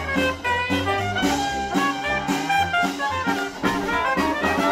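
Live Dixieland-style jazz band playing an upbeat tune, brass instruments carrying the melody over a steady bouncing bass line.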